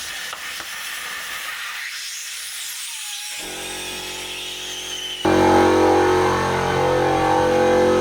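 Compressed air hissing from an air compressor's line being blown into a blocked kitchen drain, then the compressor's motor starting and running with a steady hum about three and a half seconds in, much louder from about five seconds in.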